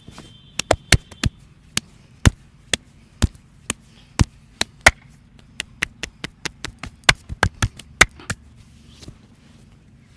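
Rapid percussive hand strikes of an Indian head massage: about thirty sharp slaps in uneven runs, some single and some in quick clusters, stopping near the end.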